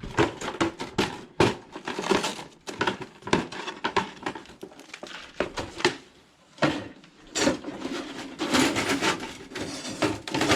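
Irregular knocks, clatters and metallic clinks of things being handled and set down, likely a homemade fire-pit case-table and the metal parts it holds. There is a short lull past the middle, and the clatter gets busier near the end.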